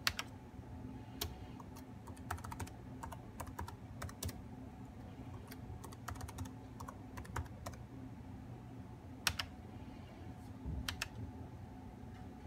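Typing on an HP laptop keyboard: irregular key clicks as a password is entered, with a few louder clicks near the end.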